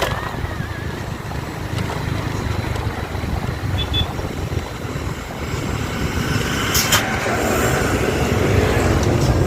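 Steady low rumble of a motor vehicle running, growing slightly louder toward the end, with a sharp click right at the start and another about seven seconds in.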